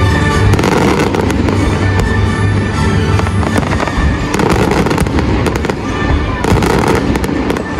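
Fireworks display: aerial shells bursting with a dense run of sharp bangs and crackling, thickest in clusters around the middle and again near the end, with music playing underneath.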